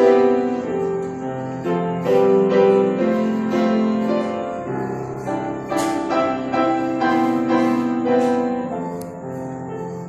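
Piano playing slow, sustained chords, the harmony changing about once a second.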